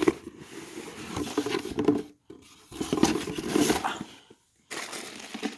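Cardboard subscription box being handled and opened: rustling packaging and small knocks, broken twice by brief dead silences.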